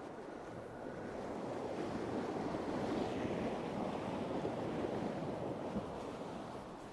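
Sea water rushing and splashing along a sailing yacht's hull as it sails through waves, swelling to a peak midway and easing off.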